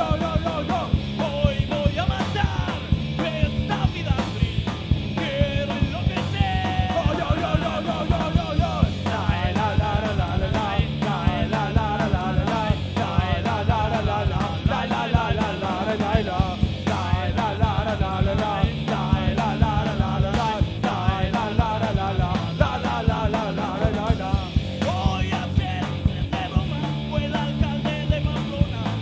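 Live punk rock band playing a fast song at full volume, with a dense, driving beat and a wavering melody over it.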